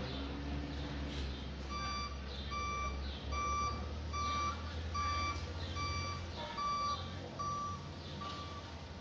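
Vehicle reversing alarm beeping at one steady pitch, about one beep every 0.7 seconds, starting about two seconds in, over the low drone of a running engine.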